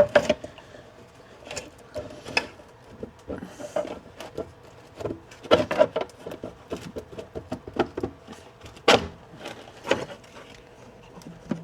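Hard plastic parts clicking and knocking as a 3D-printed dash mount is handled and pressed into place on a digital dash display, irregular taps with a sharper knock about nine seconds in, over a faint steady hum.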